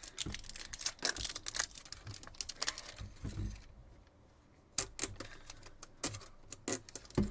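Clear plastic shrink wrap being peeled off a trading-card box, crinkling and crackling in quick bursts, with a pause of about a second in the middle.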